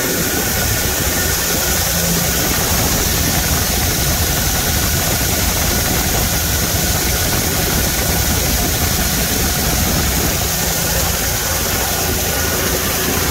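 An engine running steadily while an auger loads granular nitrogen-sulfur fertilizer into a semi trailer. The fertilizer prills pour with a continuous rush, and wind buffets the microphone.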